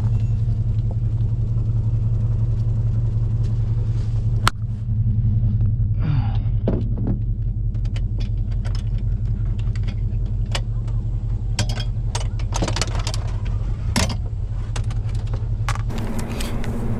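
Pickup truck engine idling with a steady low hum, with sharp metallic clicks and rattles of the aluminium dog box's door latch and padlock being worked, most of them in the second half.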